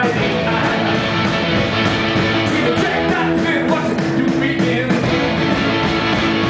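Rock band playing live: electric guitars and drums with a steady beat, and a man singing into a handheld microphone.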